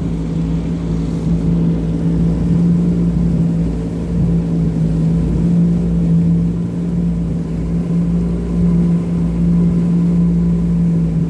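Jet ski engine running steadily at low speed: an even drone with no change in pitch.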